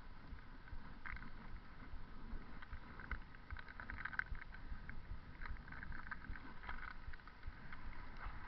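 Wind buffeting the microphone and road rumble while a bicycle is ridden, with scattered light rattling clicks throughout.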